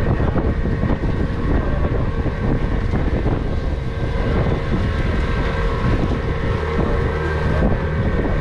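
Small tour boat's engine running steadily under way, with wind buffeting the microphone.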